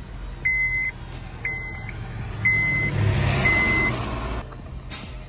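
A 2010 Honda Civic's warning chime beeping about once a second, each beep about half a second long and growing fainter. About two seconds in, the starter cranks the engine for a little over two seconds, louder than the chimes.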